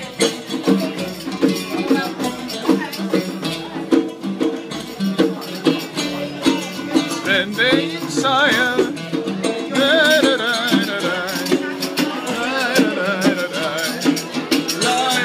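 Live ensemble music with oud and qanun playing over a steady percussion beat; from about halfway through, a voice sings long notes with a heavy vibrato.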